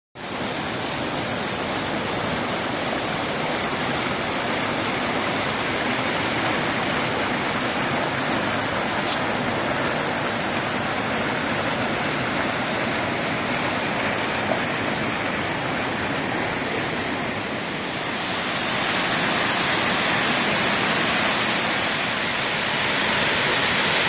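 Mountain stream and waterfall rushing over granite boulders in a steady roar of water. It grows louder and hissier about three quarters of the way in.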